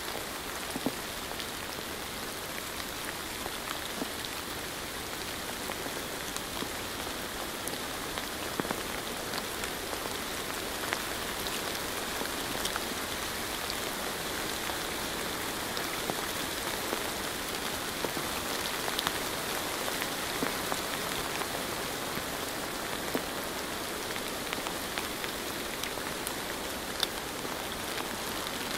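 Steady rain falling, with individual drops ticking here and there over the even hiss.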